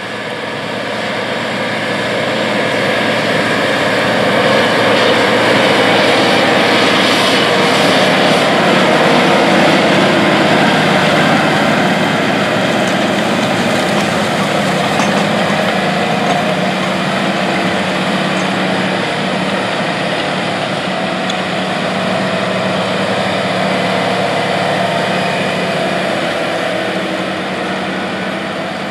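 Case IH Quadtrac 580 tracked tractor's 12.9-litre FPT diesel running steadily under load as it pulls a vertical tillage tool across the field at about 8 mph. The sound swells over the first few seconds and eases off near the end.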